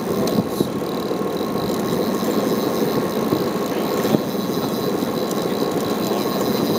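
Steady noise of a fishing boat's engine running at idle, mixed with wind and water on deck, with a faint high steady whine over it.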